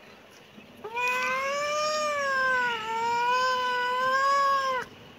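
Tabby cat giving one long, drawn-out meow of about four seconds, starting about a second in, its pitch wavering with a dip partway through before it cuts off.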